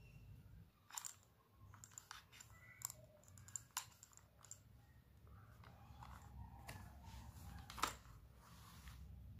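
Faint handling noise of a plastic over-ear headset and its cable being turned over in gloved hands: scattered light clicks and taps, with one sharper click about eight seconds in.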